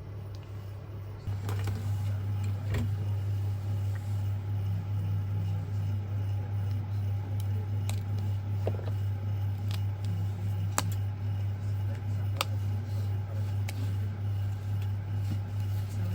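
A steady low electrical hum starts about a second in, with scattered light clicks and taps of small tools on the phone.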